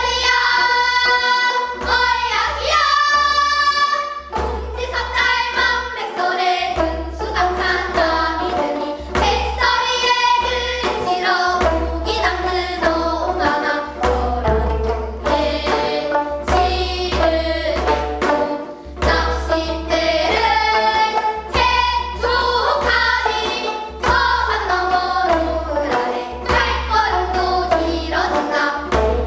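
A group of young girls singing a Korean sinminyo (new folk song) together while accompanying themselves on gayageum, the plucked zither strings under the voices.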